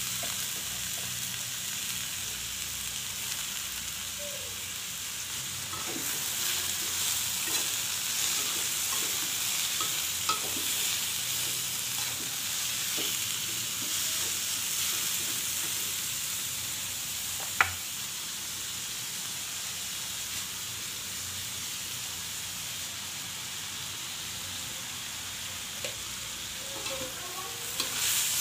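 Shredded vegetables sizzling in a metal wok over a gas flame while a metal spatula stirs them, scraping and tapping against the pan. One sharp knock about two-thirds of the way through, and a few more taps near the end.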